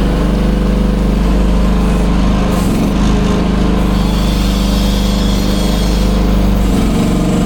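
Small petrol engine running steadily just after being started, at an even, loud level.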